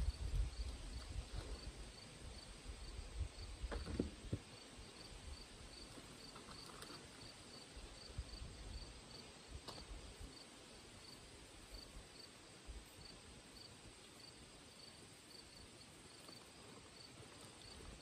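An insect chirping steadily in a regular rhythm, about two short high-pitched chirps a second, with a low rumble in the first few seconds.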